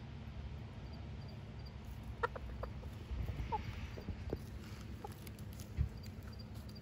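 Silkie chicken giving a handful of short, soft clucks, starting about two seconds in, over a steady low wind rumble on the microphone, with a dull bump near the end.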